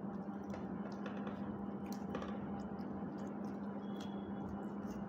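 Faint sounds of people eating rice with their hands from steel pots: soft squishes and a few small clicks, over a steady low hum.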